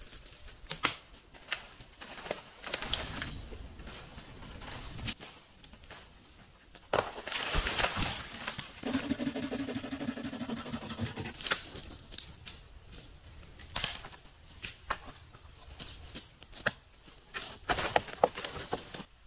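Hand work with wood and branches: scattered sharp clicks and knocks with rustling between them, and a steady low buzz for a couple of seconds about nine seconds in.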